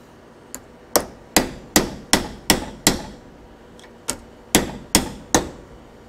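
16-ounce ball-peen hammer striking a scrap of aluminum held against a door hinge pin, driving the pin back into the rebuilt hinge. A light tap, then six blows at about two and a half a second, a pause of about a second, then four more, each ringing briefly.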